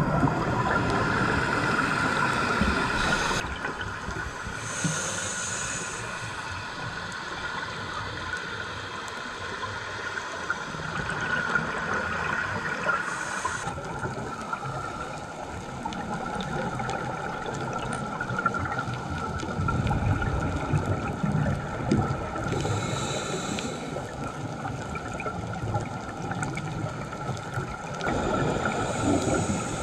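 Muffled underwater sound through a camera's waterproof housing: scuba regulator breathing, with a burst of exhaled bubbles every several seconds over a steady hiss.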